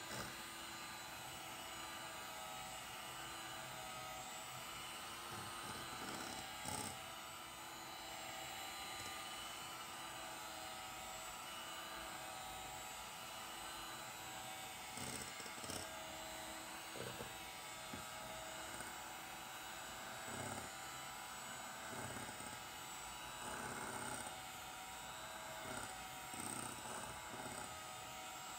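Proctor Silex electric hand mixer running steadily, its beaters whipping a thick cream mixture in a glass bowl, with a few short knocks scattered through.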